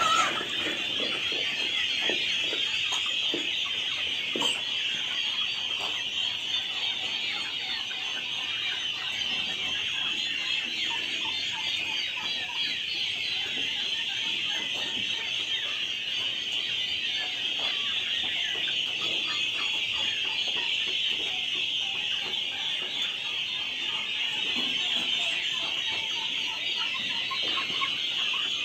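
A large flock of young Aseel country chickens calling continuously: a dense, high-pitched chorus of overlapping peeps and cheeps, with scattered lower clucks mixed in.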